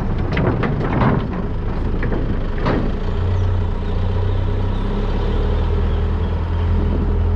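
A few sharp knocks and clicks, then about three seconds in an engine settles into a steady low hum.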